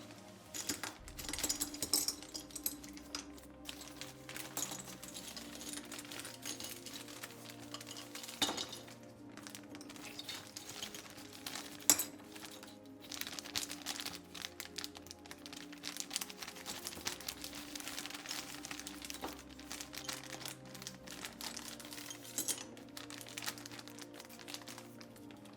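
Background music over plastic keycaps clicking and clinking against each other, with some packaging crinkling, as the keycaps are unboxed.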